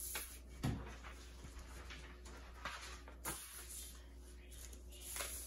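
A large sheet of paper being handled and slid across a tabletop, with a few soft rustles and knocks, about one second in and again past the middle, in a quiet small room.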